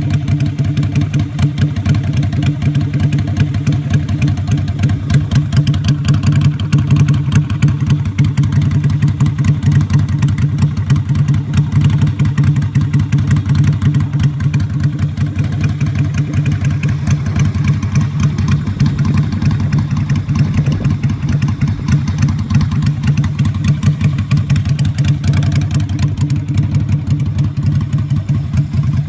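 Exhaust of a custom 250cc Keeway Land Cruiser chopper motorcycle, its engine running at a steady idle.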